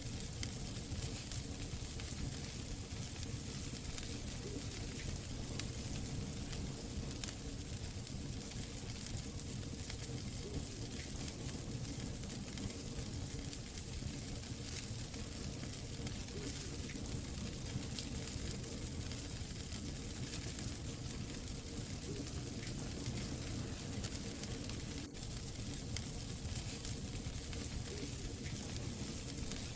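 Wood fire in a fireplace crackling: a steady hiss with frequent small pops, and one sharper pop about 25 seconds in.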